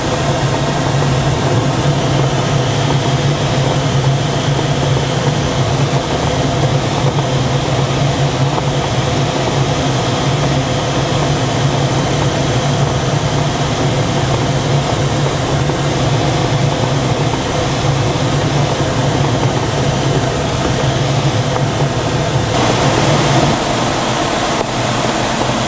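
Steady rush of airflow over the canopy inside a DG-505 glider's cockpit on aerotow, under the constant low drone of the tow plane's engine and propeller ahead. Near the end the rushing grows brighter and the drone fades.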